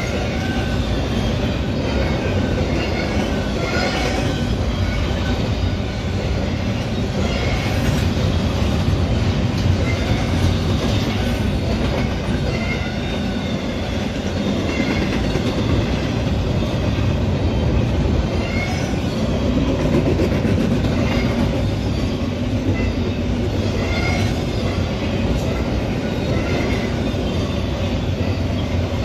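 Double-stack intermodal freight train's well cars rolling steadily past: a continuous rumble of steel wheels on rail, with brief high squeaks here and there.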